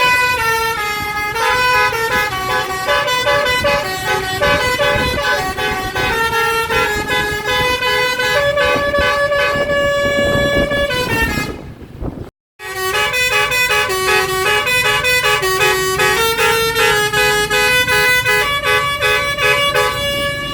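A tour bus's telolet basuri horn, a multi-trumpet musical horn, plays a melody of stepped, held notes. It breaks off abruptly about twelve seconds in and starts up again a moment later.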